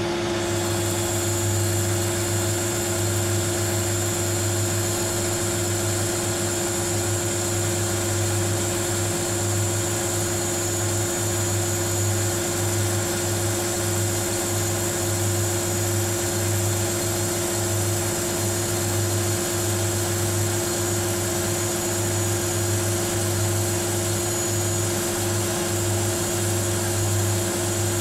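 Weiler Matador lathe running at 1800 rpm while a carbide insert takes a light turning cut in the gear blank, throwing stringy chips. A steady machine hum runs throughout, and a high-pitched note sets in about half a second in as the cut starts.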